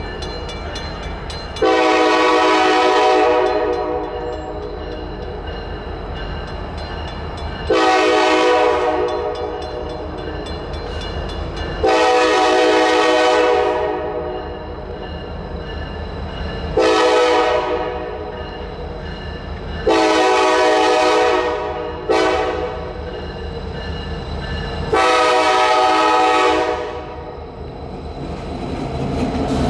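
Norfolk Southern freight locomotive's multi-chime air horn sounding for a grade crossing: seven blasts a few seconds apart, mostly long and one short, over the low rumble of the approaching diesel locomotives. Near the end the rumble grows louder as the lead locomotives reach the crossing.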